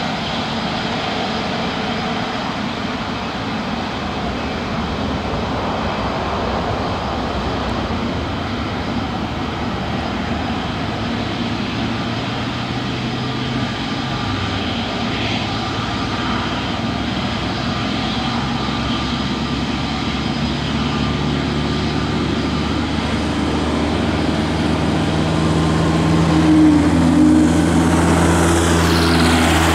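Bombardier CS300 airliner's Pratt & Whitney PW1500G geared turbofans running at taxi power, a steady jet noise with a low hum. It grows louder as the aircraft nears, and near the end a high whine falls in pitch as it passes close.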